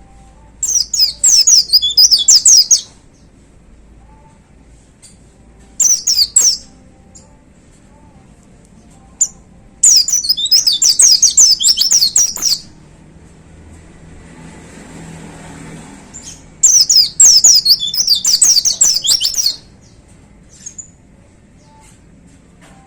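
White-eye (pleci) in full song, delivering four loud bursts of rapid, high twittering notes, each lasting one to three seconds, with short pauses between them.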